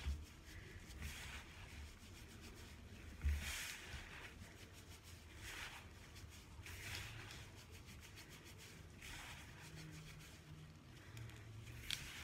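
Hands rubbing and working dry bath bomb powder mixture in a bowl, soft swishing strokes every second or two, with one soft thump about three seconds in.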